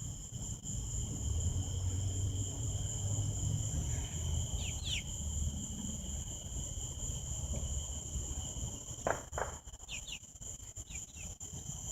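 Steady high chorus of insects, two unbroken high tones, with a few short, quick chirps about four to five seconds in and again near ten seconds, over a low rumble.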